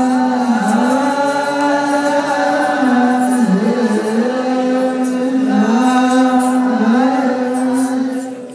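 Ethiopian Orthodox church singers chanting woreb in unison, a male chorus holding long melismatic notes that dip and return in pitch. The chant breaks off near the end.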